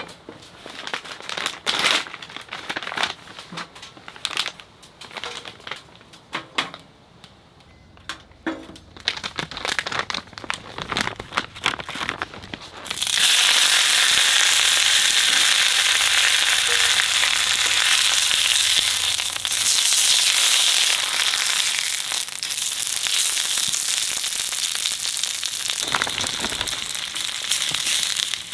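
Scattered clicks and knocks of cooking preparation. About halfway through, Korean pancake (jeon) batter goes into hot oil in a pan and sizzles loudly and steadily.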